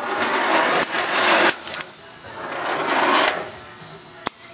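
Automatic tube loader on a Duraturn 1530 lathe cycling: two rushing swells of noise, each lasting about a second, broken by several sharp metallic clicks and clanks.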